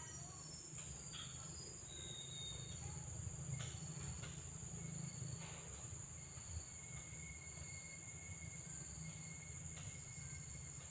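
Steady high-pitched chorus of insects, with a faint low rumble beneath and a few short, faint whistles.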